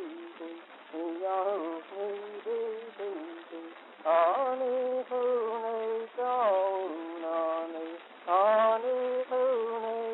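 A high voice singing a slow wordless melody, holding notes and gliding between them, with short breaks between phrases.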